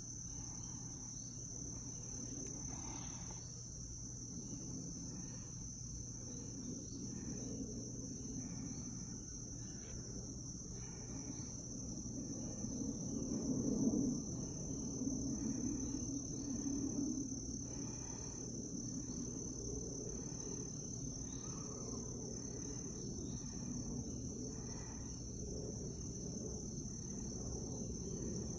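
Crickets trilling in one steady high-pitched tone, over a low background rumble that swells around the middle.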